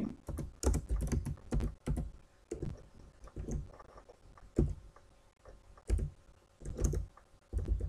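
Typing on a computer keyboard: irregular keystrokes, quick and close together for the first couple of seconds, then a few separate key presses with pauses between them.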